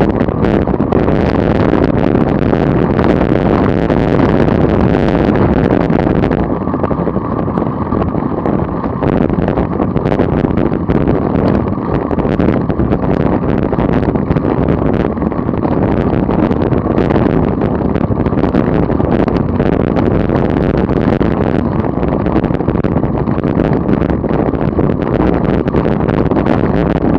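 Wind rushing over the microphone of a camera moving at about 25 mph, a loud steady rumble with crackly buffeting and some road noise. The hiss thins out about six seconds in.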